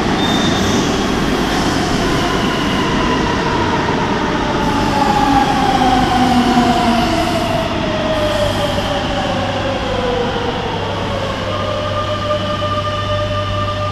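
Madrid Metro Serie 9000 electric train pulling into the platform and braking to a stop. Its running rumble carries a whine that falls steadily in pitch over about ten seconds; the train then stands with a steady hum and a constant higher tone.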